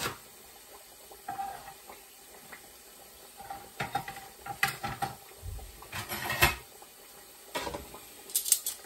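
Kitchen knife chopping onion on a plastic cutting board: scattered, irregular knocks and taps, the loudest a little past six seconds in.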